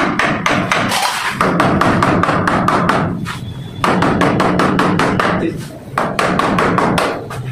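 A hammer tapping quickly on a plastic door frame, several blows a second, as the frame is set into a brick wall opening. The tapping stops briefly about halfway through and again near the end.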